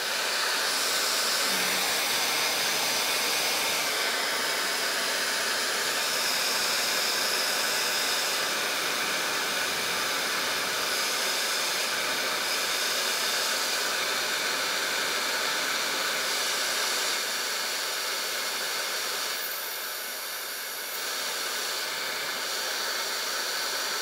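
UKLISS 7-in-1 hair dryer styling tool blowing, a loud, steady rush of air with a faint high whine. The sound drops for a few seconds about two-thirds in and then rises again as the heat and fan settings are stepped through, the fan slowing on the cool setting.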